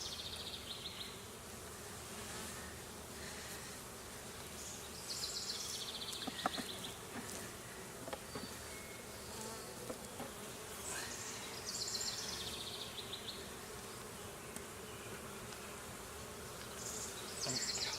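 Honeybees buzzing around an opened hive. A short, high, falling trill repeats about every six seconds, with a few light knocks between.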